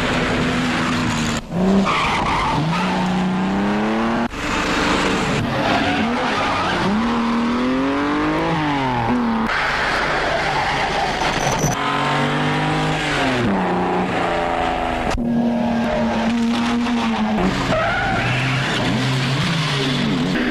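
Car engines revving up and down hard with tyre squeal, on an old film's car-chase soundtrack. Several abrupt edits cut between shots.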